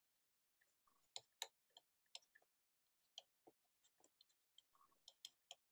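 Faint, irregular clicks and taps of a stylus on a tablet screen while handwriting, quiet for the first second and then coming in quick scattered groups.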